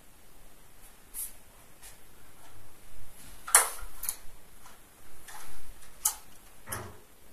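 A few scattered sharp clicks and knocks in a small room, about five of them, the loudest about three and a half seconds in, with faint rustling between.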